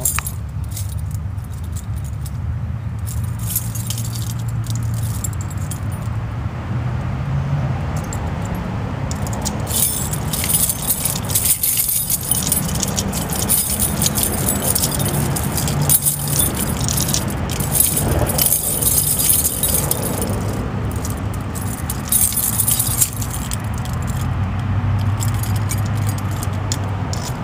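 Irregular metallic clicking and clinking as a double-cylinder gate deadbolt is tapped and worked to knock out a piece jammed in the cylinder. The jammed piece is stubborn and does not come free.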